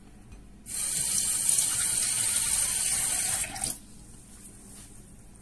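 A kitchen tap runs into the sink for about three seconds: water starts suddenly a little under a second in, runs steadily, then is shut off.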